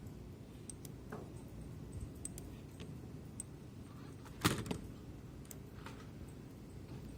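Scattered light clicks of a computer mouse and keyboard over a steady low hum, with one louder knock about four and a half seconds in.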